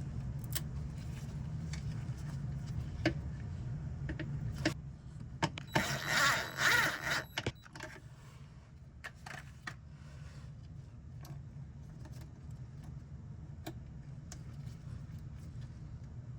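Whirlpool/Maytag washer's drive motor humming steadily, the hum of a washer that is not agitating properly. Scattered clicks and knocks run through it, with a louder rushing, wavering burst a little past midway. After the burst the hum carries on, quieter.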